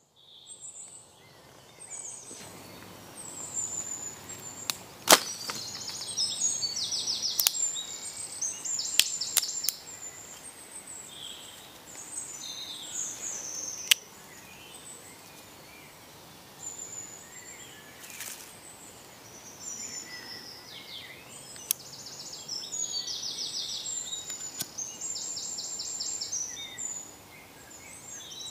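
Woodland birdsong: several birds calling, one repeating a fast trill again and again, over a steady outdoor hiss. A few sharp cracks of dry twigs being handled and laid on a small fire pile cut through, the loudest about five seconds in and the last about fourteen seconds in.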